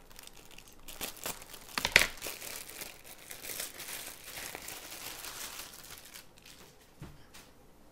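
Thin plastic packaging bag crinkling as it is pulled and torn open and a dress is drawn out of it, with the loudest crackle about two seconds in.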